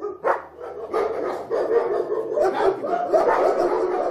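Several dogs barking over one another, continuously.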